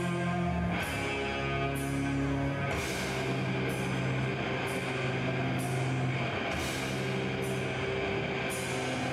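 Death metal band playing live: distorted electric guitars and bass hold long, slow chords while the drums hit a crash cymbal about once a second.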